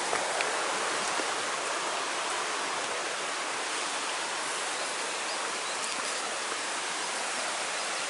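Steady rushing of water, an even hiss that holds at the same level throughout.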